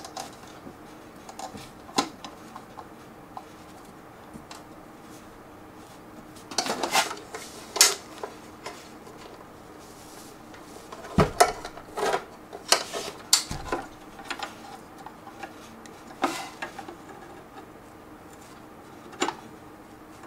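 An Akitio Thunder2 Quad drive enclosure's case being handled: scattered clicks, knocks and rattles in clusters as its front cover and latch are pressed and pried and the case is tipped over and set back down, while the cover will not come off.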